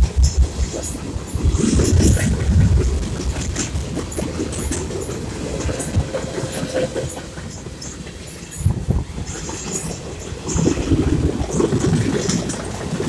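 Freight cars rolling past close by: steel wheels clacking over the rail joints over a steady rumble.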